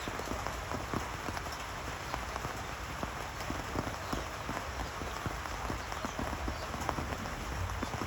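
Steady rain falling, with many close drops tapping on a hard surface.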